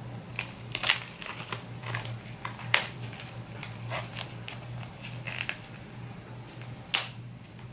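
Plastic shrink-wrap on a boxed album crinkling and crackling as it is carefully torn and peeled off. Irregular small crackles, with sharper snaps about a second in, near three seconds and about seven seconds in.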